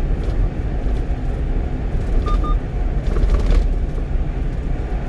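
Road and engine noise of a one-ton truck cruising at highway speed, heard inside the cab as a steady low rumble. A short double beep sounds about two seconds in.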